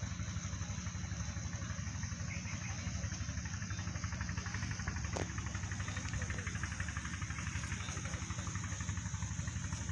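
An engine idling steadily, with a fast even pulse underneath and a constant high-pitched hiss above it.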